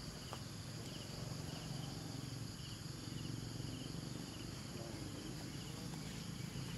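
Insect chorus: a steady high buzzing drone with a short pulsed chirp repeating at an even pace over it.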